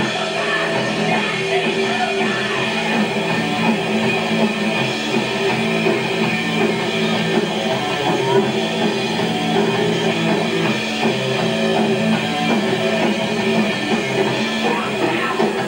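Rock band playing live: electric guitar over bass and drum kit, steady and loud with no break.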